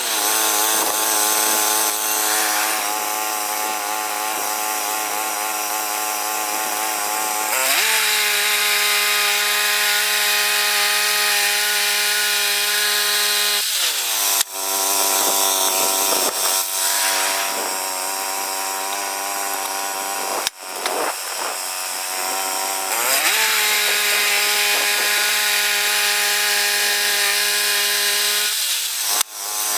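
Woodland Mills HM122 portable bandsaw mill cutting red cedar: its gas engine runs at a steady high speed under a hissing blade cut. Three times, about 14, 20 and 29 seconds in, the engine speed drops sharply and then climbs back.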